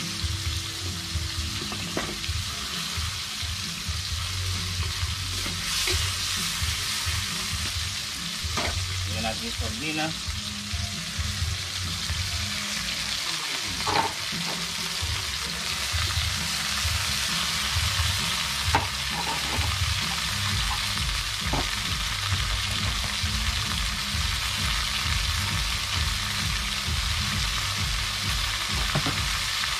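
Ingredients sautéing in hot oil in a pan: a steady sizzle, stirred now and then, with a few sharp clacks of the utensil against the pan.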